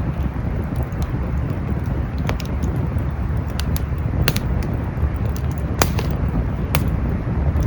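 Campfire crackling: wood snapping in a run of small ticks and several sharp pops, over a steady low rumble.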